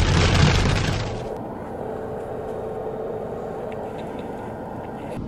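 Road noise inside a moving car: a loud, rumbling din for about the first second, then, at a cut, a quieter, steady cabin hum.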